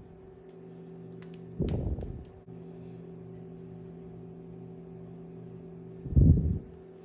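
Steady low hum with several fixed pitches, like an appliance or fan running. Two dull handling thumps cut across it, one about two seconds in and a louder one near the end, with a few faint ticks shortly after one second.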